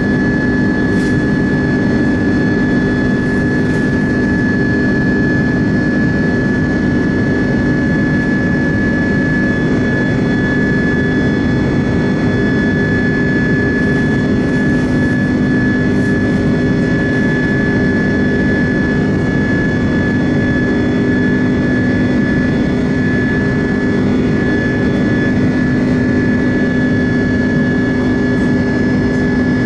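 Airbus A330 jet engines and airflow heard from inside the cabin during the climb after takeoff: a loud, steady noise with a steady high whine and a low hum.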